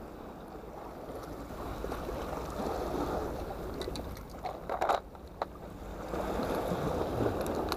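Sea water washing steadily against rocks. About halfway through come a few sharp plastic clicks and rattles as a small plastic tackle box is handled and opened.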